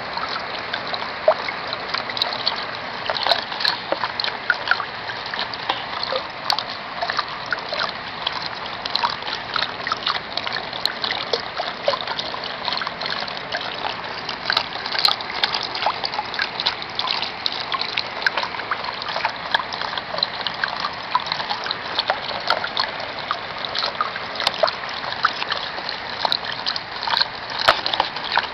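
Steady rain falling onto a plastic sheet, with dense small drop ticks over a continuous trickling of water.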